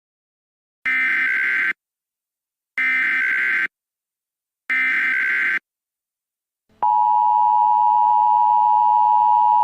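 Emergency Alert System tones: three one-second bursts of the SAME digital header, about a second apart, beginning about a second in, then the steady two-tone EAS attention signal starting near seven seconds. The tones are simulated and invalid, not a real alert.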